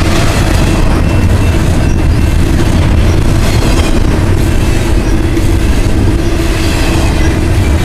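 Union Pacific double-stack container train's well cars rolling past close by: a steady, loud rumble of steel wheels on rail, with a faint high wheel squeal at times.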